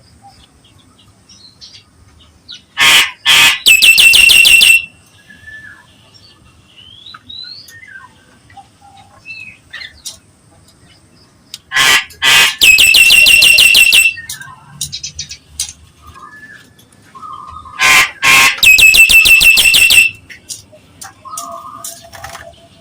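Nias hill myna calling loudly: three bouts, each two short sharp notes and then a long, harsh, buzzy squawk, with faint chirps and whistles between them.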